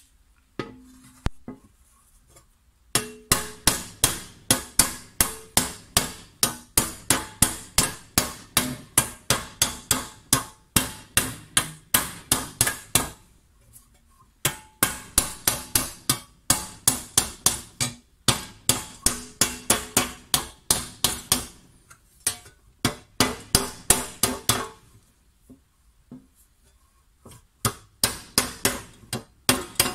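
Hand hammer striking a copper tray being raised into shape over a wooden block, in quick runs of about four blows a second with short pauses between runs; each blow rings briefly with a metallic tone.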